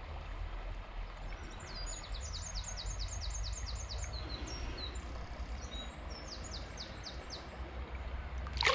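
A songbird singing two runs of quick, repeated high falling notes, the first about two seconds in and a shorter one later, over the steady low rush of the shallow river.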